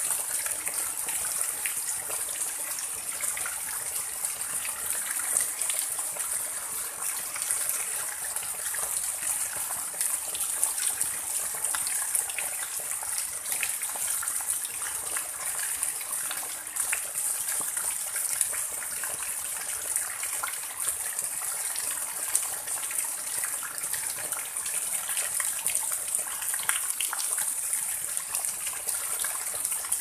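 Heavy rain falling on flooded ground, the drops splashing into standing water: a steady rushing hiss dotted with countless small splashes.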